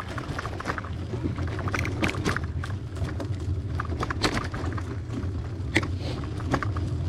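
Trek hybrid bicycle riding over a bumpy dirt trail: a steady low rumble, with irregular clicks and rattles as the bike jolts over bumps.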